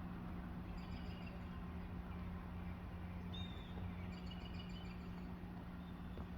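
Faint outdoor ambience: small birds give a few short high chirps, about a second in, again after three seconds, and in a quick run a little later, over a steady low hum and a soft background rush.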